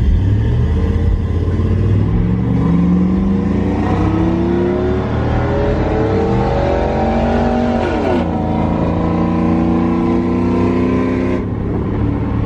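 Pickup truck engine accelerating hard, heard from inside the cab: the pitch climbs steadily for several seconds, drops sharply at a gear shift about eight seconds in, then holds steadier.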